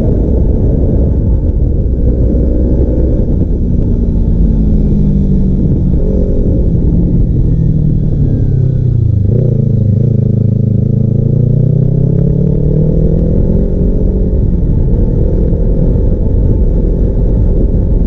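Kawasaki Ninja 300's parallel-twin engine through a custom exhaust while riding: the engine note sinks as the bike slows for about nine seconds, jumps up in pitch suddenly, then climbs again as it accelerates.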